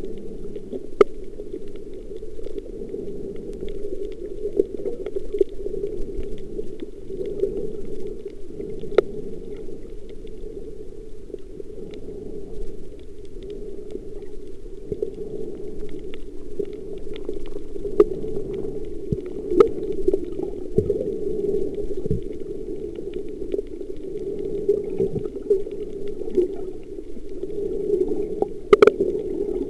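Muffled underwater sound picked up by a snorkelling camera: a steady, dull watery rush, broken by scattered sharp clicks, with a louder click near the end.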